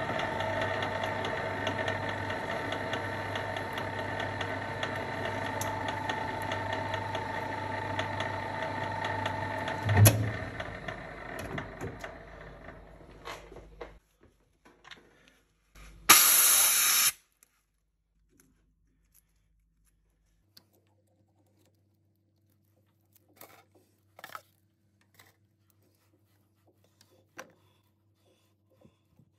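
Metal lathe running with a steady whine as the four-jaw chuck spins a stainless steel hammer head onto a tap held in the tailstock, starting the handle thread under power. About ten seconds in there is a clunk and the lathe runs down and stops. A short, loud hiss follows, then light metal clicks as a tap wrench is fitted to the tap.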